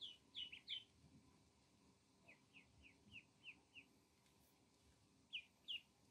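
Ducklings peeping: short, high, falling chirps. About four quick ones come at the start, then a softer run of about six in the middle, then two more near the end.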